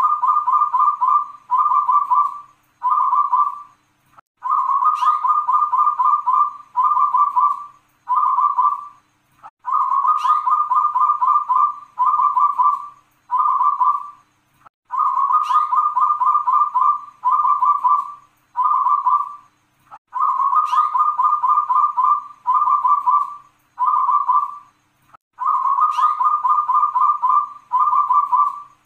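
Zebra dove (local Indonesian perkutut) singing its rolling cooing song, the long-'kung' style fanciers call noklak kung panjang. The phrase comes about every five seconds, six times. Each phrase opens with a sharp high note, then a long rolling coo, then two shorter coos.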